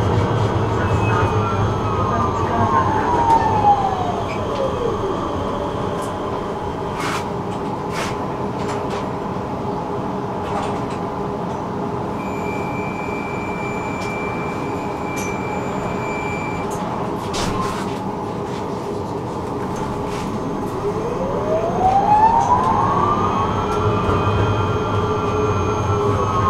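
Electric tram's traction drive whining, heard from inside the car: the whine falls in pitch as the tram slows to a stop, then a steady hum with a few clicks and a high steady beep lasting a few seconds while it stands, and near the end the whine rises again as the tram pulls away and levels off.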